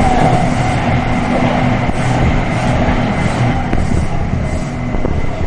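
Taipei Metro train running on surface track, heard from inside the car: a steady rumble of wheels on rail with a faint steady high tone. Another metro train passes close on the next track at the start.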